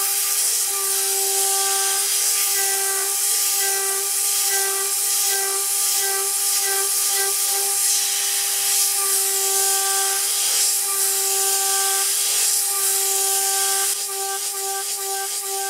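CNC router spindle milling 6060 aluminium with a small end mill: a steady high whine with overtones over a loud hiss, the tone breaking up briefly now and then as the cutter works. The sound steps down slightly in level near the end.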